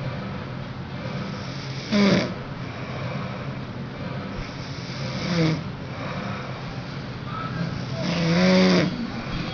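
A person snoring in sleep: three snores about three seconds apart, the last one the longest, over a steady hum.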